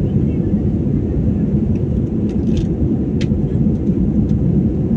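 Steady low rumble of airliner cabin noise while the plane climbs after take-off, with a couple of faint brief clicks about halfway through.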